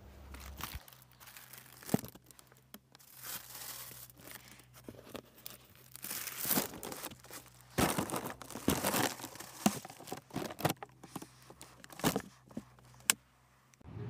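Tissue paper crinkling and a cardboard presentation box rustling as it is opened and unwrapped by hand, in irregular bursts with a few sharp clicks.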